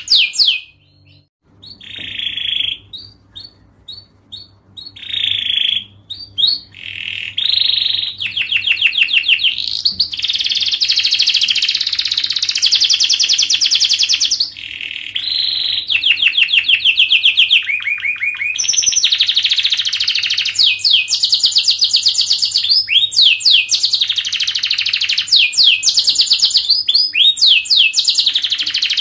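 Canary singing a long song of fast, tightly spaced trills and rolls, high-pitched. After a brief break near the start it gives short separate phrases, then settles into near-continuous rapid trilling.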